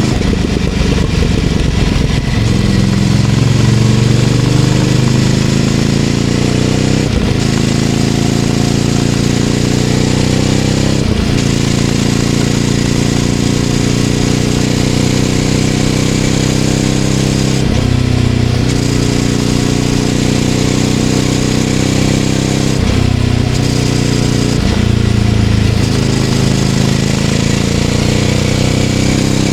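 Ducati Scrambler 800's air-cooled L-twin through a Leovince LV-10 exhaust, riding along with wind and road noise. The engine note climbs slowly and drops sharply several times, as at gear changes.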